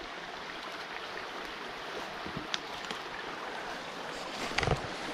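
Shallow rocky creek running over stones, a steady rush of water. A few short clicks and a couple of low knocks come a little before the end.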